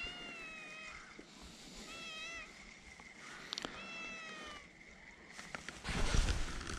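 Domestic cat meowing three times, begging for food: a long call falling in pitch, then two shorter wavering ones. Near the end there is a louder rush of noise.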